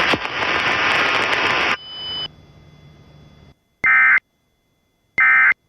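A loud hiss of static that cuts off suddenly less than two seconds in and dies away, then two short, identical bursts of the Emergency Alert System end-of-message data tone, about a second and a half apart, marking the end of the alert.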